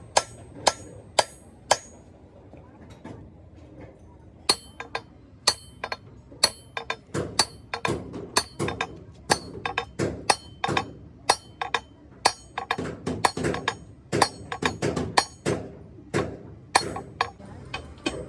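Hammer blows on steel, each strike a sharp ringing clank. A few evenly spaced strikes open it, then a pause of about two and a half seconds, then a long run of quicker, irregular strikes.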